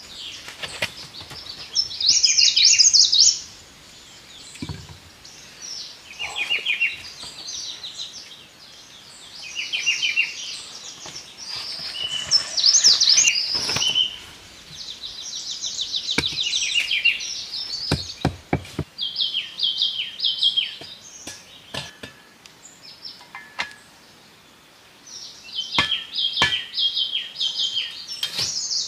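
Songbirds singing: short, fast trilled phrases, high-pitched, repeated every few seconds, with a few sharp knocks in between.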